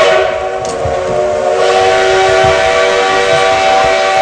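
Steam locomotive whistle blowing one long, steady blast of several tones at once, sounded as the train gets ready to leave.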